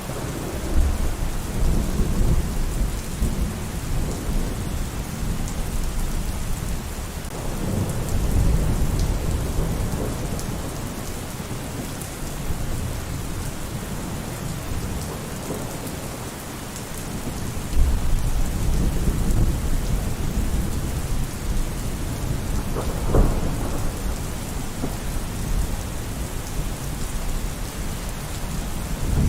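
Steady heavy rainfall with thunder: low rolling rumbles swell several times, and a sharper thunderclap comes about two-thirds of the way through.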